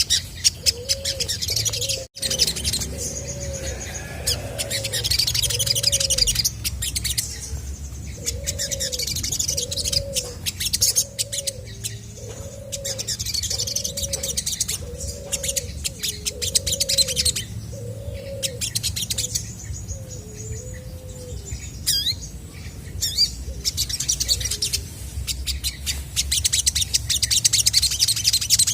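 Olive-backed sunbird singing in full voice: bursts of rapid, high-pitched chirping trills. Under it, a low cooing note repeats about once a second and stops about twenty seconds in.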